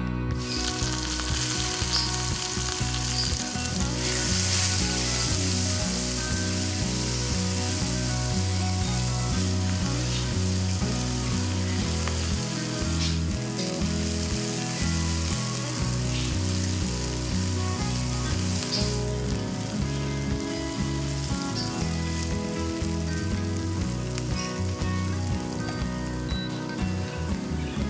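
Mushrooms and chopped onions frying in hot olive oil in a pan, with a steady loud sizzle that starts suddenly as the onions go in. A spatula stirs the pan, adding a few light scrapes and clicks.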